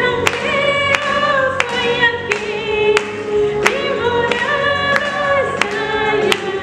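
Two women's voices singing a gospel worship song through microphones over electronic keyboard accompaniment. A sharp clap-like beat keeps time about every two-thirds of a second.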